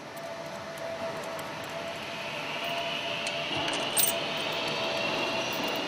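Workshop background noise with a steady hum and a faint rising whine, and one light metallic clink about four seconds in, from hand tools being handled at the piston crown.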